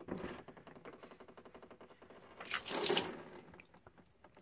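Green coolant draining from the opened radiator drain plug of a Nissan 350Z and splashing into a catch bucket, with a louder rush of liquid about two and a half seconds in.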